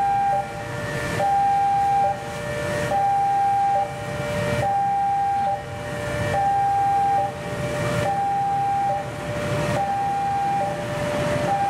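Railway level-crossing warning alarm sounding an electronic two-tone pattern: a higher and a lower tone alternate, each held a little under a second, with no gaps between them. Beneath it a CC206 diesel locomotive's engine rumbles as it moves slowly through the crossing area.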